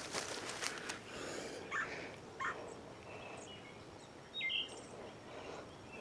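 Footsteps on a dirt woodland trail for about a second, then they stop and a few short bird chirps sound, the loudest about four and a half seconds in.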